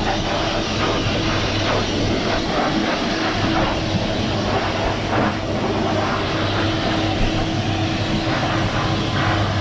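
Self-service dog wash blow dryer running steadily: a constant motor hum under the rush of air from the hose as it dries a wet dog's coat.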